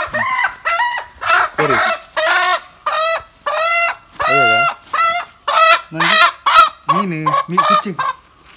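A chicken calling loudly and close, a rapid string of short cries at about two a second.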